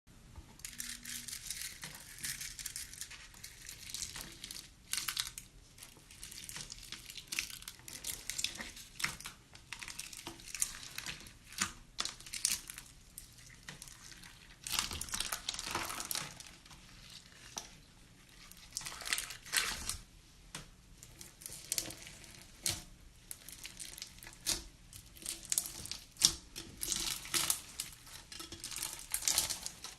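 Slime being squeezed, poked and stretched by hand, giving off dense irregular crackling and clicking as air pockets pop.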